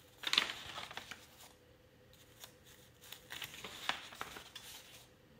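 Sketchbook pages being turned by hand: paper rustling and flapping, loudest just after the start, with a second stretch of rustling about three to four and a half seconds in.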